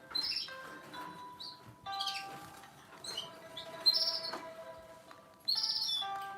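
Sharp GX17 mobile phone ringtone playing: a melody of short electronic tones in phrases, each opening with a burst of short high chirps, a new phrase coming about every one to two seconds.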